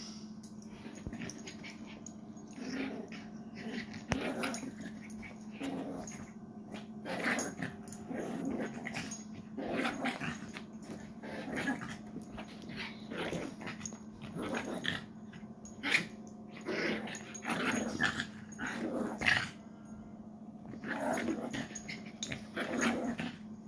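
A small puppy play-growling in short bursts, a fresh one every second or two, while it tugs at and shakes a plush toy.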